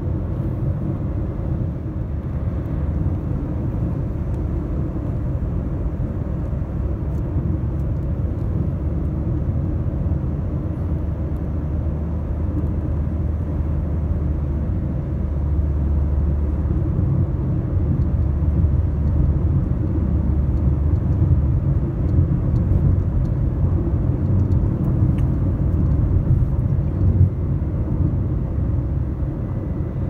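Inside a moving car's cabin: a steady low rumble of engine and tyres on the road, a little louder in the second half.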